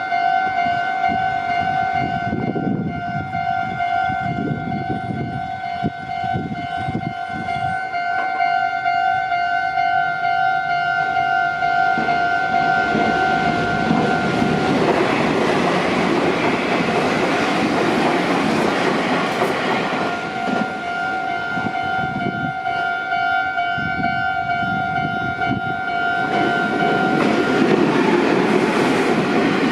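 Japanese level-crossing alarm ringing its steady two-tone "kan-kan" bell while Meitetsu trains rumble and clatter through the crossing. The bell drops out about halfway in as a train passes, comes back a few seconds later, and a second train's rumble builds near the end.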